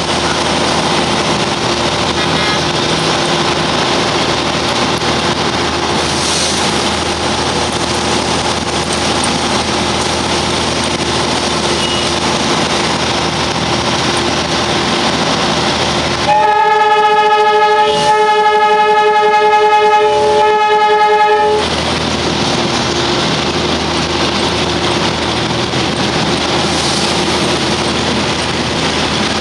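Darjeeling Himalayan Railway toy train's diesel locomotive running steadily, then sounding one long horn blast of about five seconds in several tones, which wavers briefly twice before the running noise returns.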